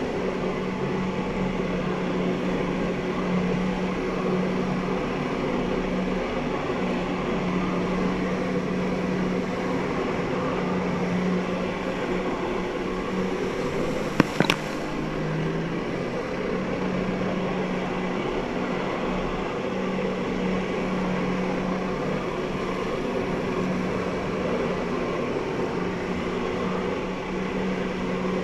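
Jet ski engine running steadily under load, pumping water up the hose to a flyboard, as a constant drone over a rush of water spray. A couple of sharp clicks about halfway through.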